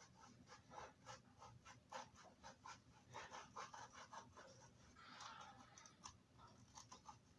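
A knife scraping and cutting into the rubbery shell of a moonball bouncy ball: faint, quick, irregular scratching strokes, a few a second.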